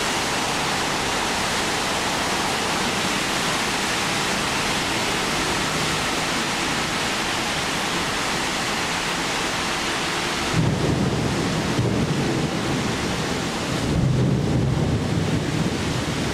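Steady hiss of rain and wind, then gusts rumbling on the microphone that come in suddenly about two-thirds of the way through and again near the end.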